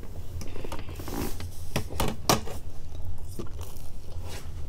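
Metal forks clicking and scraping against plates as spaghetti is twirled and eaten, a string of sharp clicks spread across the few seconds.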